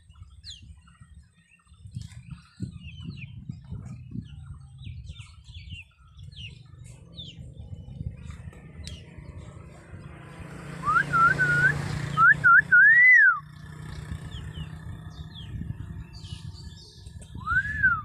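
Common hill myna whistling: a quick run of several loud rising-and-falling whistles partway through, and one more near the end, over faint high chirps of small birds.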